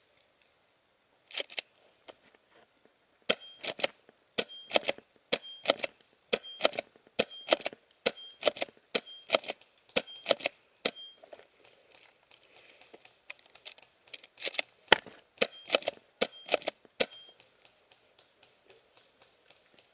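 A string of sharp single snaps of airsoft gunfire, about one to two a second, in two runs with a pause of a few seconds between them.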